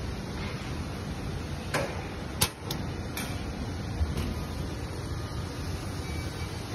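Latch handle of a sheet-metal electrical cabinet door being unlocked and the door opened: a run of sharp metallic clicks and clacks, the loudest about two and a half seconds in, over steady background noise.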